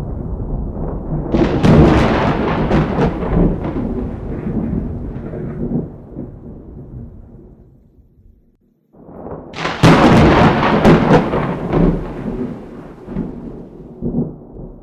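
Two thunderclaps: a sharp, crackling clap about a second in that rolls off into a long, fading rumble and dies away to near silence at about eight seconds, then a second crack and rolling rumble about a second and a half later.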